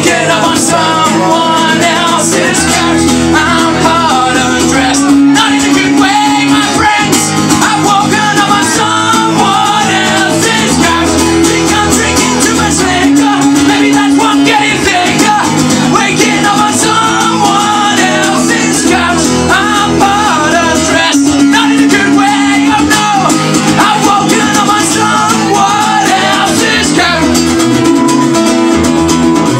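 Live folk-punk song: a man singing loudly into a microphone while strumming an acoustic guitar.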